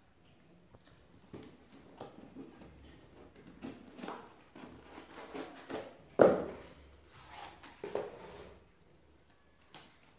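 A cardboard shipping box being handled and opened by hand: irregular rustles, scrapes and knocks of cardboard, the loudest about six seconds in.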